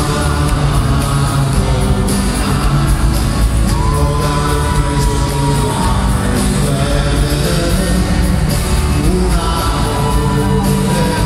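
Live band music played loudly through an arena sound system, with singing and an amplified violin in the mix. Two long notes are held, about four seconds in and again near the end.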